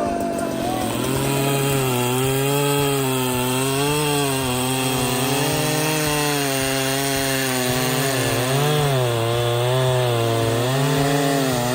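Chainsaw cutting into wood, the engine held under load with its pitch wavering as it bogs and recovers; about eight and a half seconds in it briefly revs higher, then settles back into the cut.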